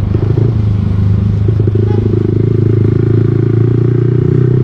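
Motorcycle engine running steadily while being ridden, a low drone. The owner complains that this bike hesitates and jerks at low revs, as if something is clogged.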